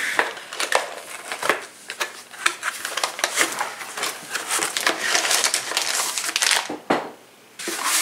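A cardboard box being torn open by hand, with dense crackling and tearing of the cardboard and crinkling of the plastic packaging inside; it goes briefly quiet near the end.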